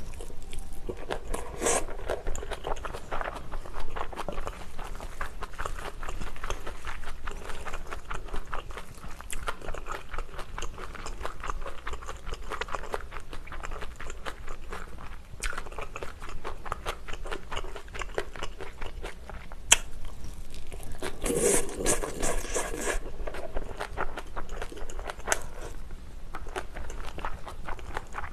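Close-miked chewing and biting of spicy tuna and flying-fish-roe bibimbap, a dense run of small wet clicks and smacks, with a metal spoon scraping and scooping in a stainless steel bowl. A louder, busier stretch of scooping and chewing comes about three-quarters of the way through.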